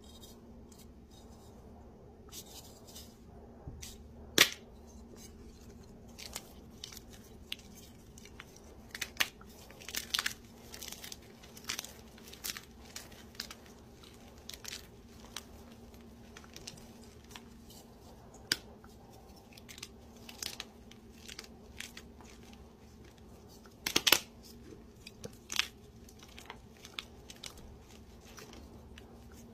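Hands crushing and crumbling crunchy dyed blocks of powdery chalk-like material, giving scattered sharp crunches and crackles. The loudest snaps come about four seconds in and again about three-quarters of the way through. A faint steady hum runs underneath.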